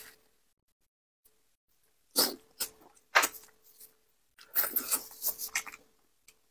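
Close-miked wet eating sounds of a person eating sauce-covered seafood: a few short sucks and slurps about two seconds in, then a denser run of them from about four and a half to six seconds.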